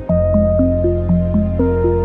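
Calm new-age background music: a melody of short notes stepping about four times a second over held bass notes.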